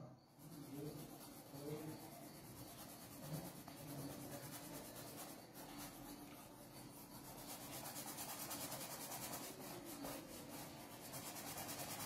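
Faint rubbing of a paintbrush stroking paint onto a canvas, uneven and scratchy.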